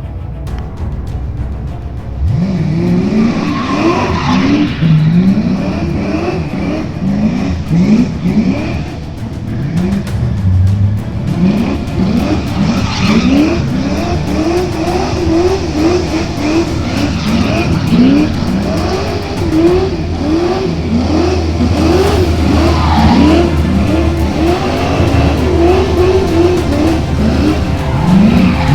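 Race car engine revving, its pitch rising over and over, with music playing underneath.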